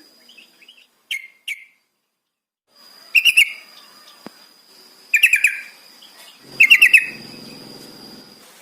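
Yellow-vented bulbul (trucukan) calling in short bubbly bursts of rapid notes, about four phrases a couple of seconds apart, with a faint thin high tone running under them.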